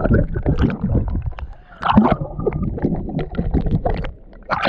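Water splashing and sloshing close to the microphone in uneven bursts, as someone wades or swims in a pool.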